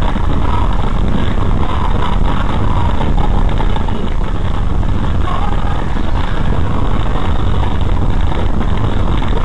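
Car rolling over cobblestone paving, heard from inside the cabin: a steady, dense low rumble from the tyres drumming on the stones, with a constant fine rattle.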